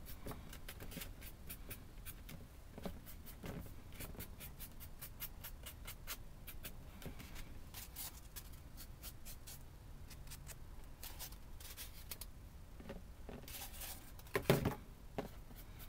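A paintbrush dry-brushing grey paint over a textured diorama piece: a faint, irregular run of scratchy bristle strokes, with a louder brief sound near the end.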